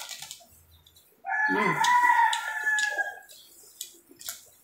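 A rooster crows once, a single drawn-out call of about two seconds starting about a second in. Short sharp clicks of eating and seafood shells being handled sound around it.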